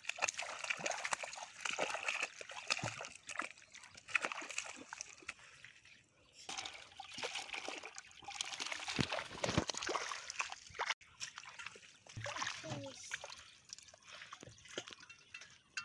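Hands splashing and sloshing in shallow muddy paddy water while groping for fish, in irregular bursts with small drips and trickles.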